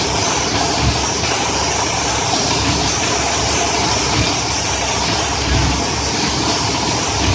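Willys drag car's racing engine running at a steady, loud idle with an uneven low beat.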